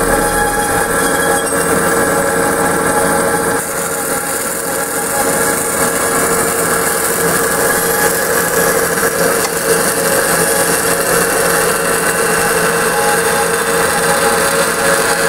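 Kysor Johnson Amada 10-inch horizontal automatic band saw running: a loud, steady mechanical drone with several held hum tones, easing slightly about three and a half seconds in.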